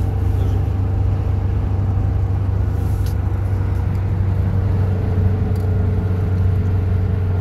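Cabin drone of a 1992 Nissan Caravan's TD27 four-cylinder turbo diesel cruising at about 100 km/h and 3,000 rpm, mixed with road and wind noise: a steady low hum with a faint whine above it.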